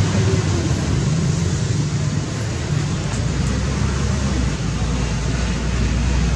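Steady outdoor background noise with a low rumble underneath, with no distinct animal calls.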